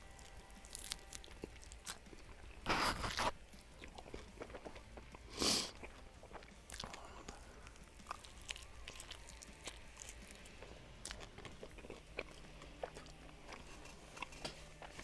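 A person biting into and chewing a sauced chicken wing close to a headset microphone: many small wet clicks and crunches, with two louder noises, one about three seconds in and a shorter one about five and a half seconds in.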